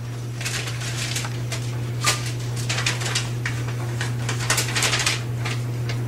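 Sheets of paper being crumpled and unfolded in the hands: irregular bursts of crackling rustle, over a steady low electrical hum.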